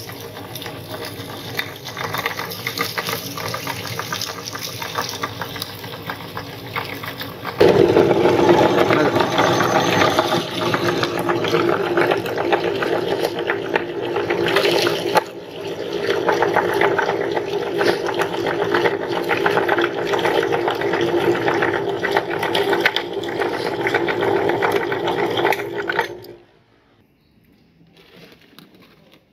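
Meat grinder crushing popcorn: a steady, dense crunching and grinding that gets louder about a third of the way in, dips briefly midway and stops abruptly a few seconds before the end.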